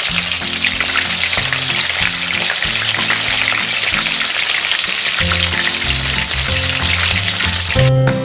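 Ajillo of octopus, sausages and vegetables in hot oil in a skillet, sizzling and crackling steadily, over background music; the sizzling stops just before the end, leaving the music.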